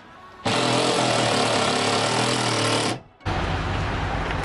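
Cordless drill run against the van's ceiling framing, going steadily for about two and a half seconds, stopping briefly, then a second loud burst of noise until near the end.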